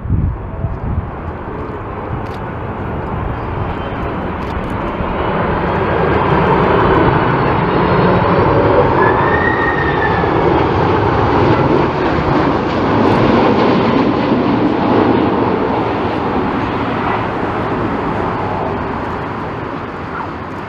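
Jet airliner engines passing close by, the noise swelling to a peak about halfway through and then slowly fading. Strong wind buffets the microphone.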